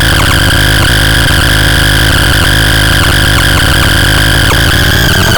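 SCRAPTRON model 1C noise device making a loud, harsh, unbroken wall of noise, with several steady high whistling tones and evenly spaced clicks.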